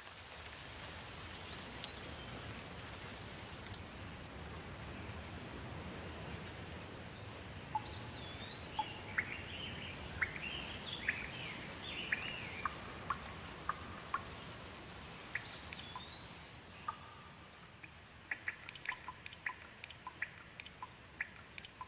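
Steady rain hiss with birds calling over it, a string of sweeping chirps through the middle. A quick run of sharp ticks comes near the end.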